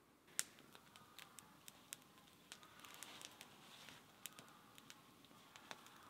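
Wood fire crackling faintly: irregular sharp pops and snaps over a soft hiss, the loudest pop about half a second in.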